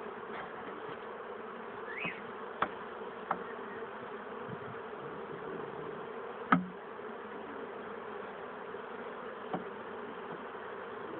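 Honeybees buzzing steadily around an opened hive, with a few sharp knocks as the frames are worked in the wooden hive box, the loudest about six and a half seconds in.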